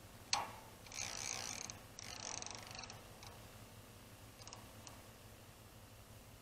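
Fishing gear being handled: a sharp click, then two rapid ratcheting rasps of about a second each, and two faint clicks near the end.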